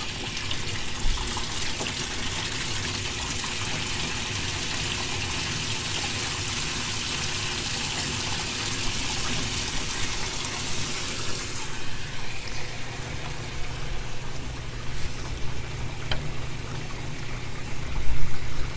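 Water gushing from a 3/4-inch hose bib spigot and splashing into a tub of water, filling a flood-and-drain aquaponics bed. It is a steady rushing splash that becomes fainter about twelve seconds in.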